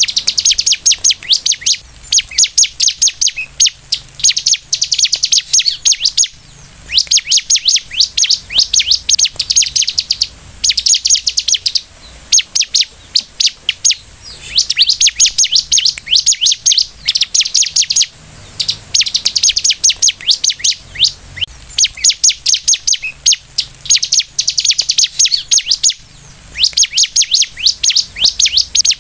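Bar-winged prinia (ciblek) in full song: a rapid, high-pitched chattering of quick repeated notes, in phrases of a second or two with short pauses between.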